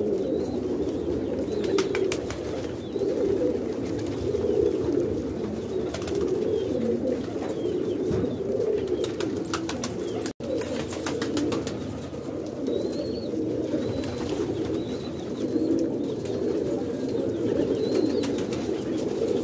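A flock of domestic pigeons cooing, many birds at once, making a continuous low, overlapping cooing chorus. Scattered light clicks run through it.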